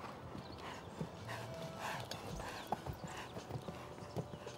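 Hoofbeats of a dressage horse cantering on a sand arena: a run of short, irregularly spaced thuds.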